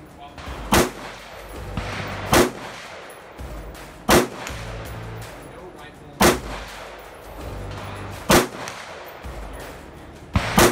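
Rifle shots fired at a slow, deliberate pace: five single shots about two seconds apart, then two in quick succession near the end.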